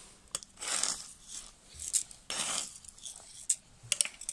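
Spilled grain being scooped and scraped up off a concrete floor with a plastic container: a series of short gritty swishes with a few sharp clicks.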